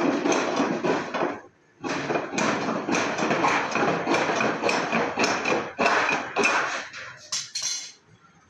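Hammer blows on sheet metal in a quick, uneven run of about two to three strikes a second. There is a short pause about a second and a half in, and the blows stop near the end.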